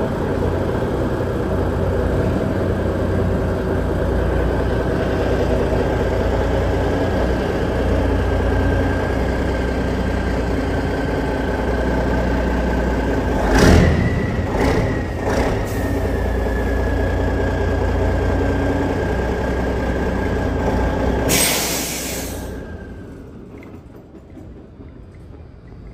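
Peterbilt semi truck's diesel engine running as the truck creeps slowly forward, with a steady whine and a few sharp air pops about halfway through. Near the end a loud air-brake hiss sounds as the brakes are set, and the engine then stops.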